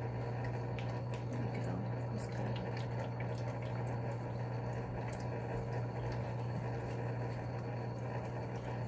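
Steady low hum with running-water noise from aquarium equipment, with a few faint ticks.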